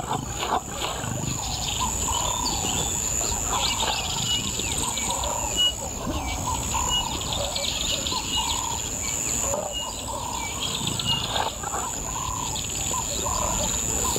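Birds calling in the bush: short calls repeated a few times a second, over a steady high-pitched hum and a low background rumble.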